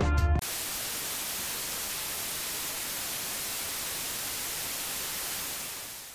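Steady static hiss, like white noise, cutting in sharply about half a second in and fading out near the end.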